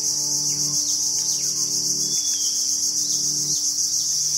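Dense, steady, high-pitched insect chorus, with a few faint bird chirps and a low hum underneath that comes and goes.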